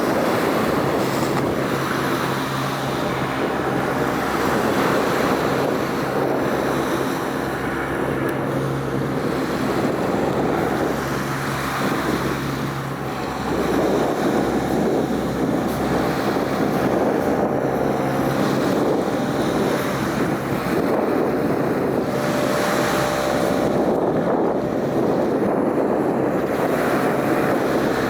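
Wind buffeting the microphone over the wash of open water, with a steady low engine hum underneath.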